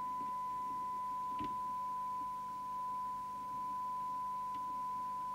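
Steady test tone recovered by a Rotel RVC240 FM CB receiver from a signal generator's modulated signal, dipping slightly in level twice midway as the detector coil is tuned for greatest amplitude. A faint click comes about one and a half seconds in.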